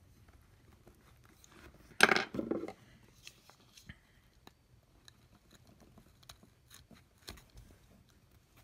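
Hands handling craft materials on a workbench: one loud crunching rustle about two seconds in, then scattered small clicks and taps.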